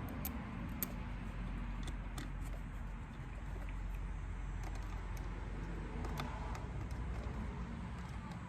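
Scattered light clicks and taps of small parts and tools being handled during lawnmower reassembly, over a steady low rumble.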